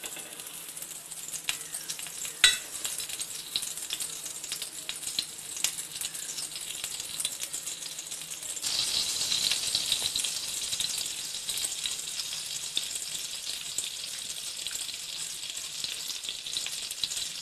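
Oil sizzling and crackling on a hot pav bhaji tawa, with one sharp knock about two and a half seconds in. About eight and a half seconds in the sizzle suddenly grows louder as a knob of butter goes into the hot oil, and it stays louder while the butter melts.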